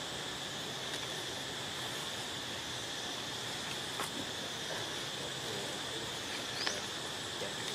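Steady high-pitched insect drone, with a faint tick about four seconds in and a short rising chirp near the end.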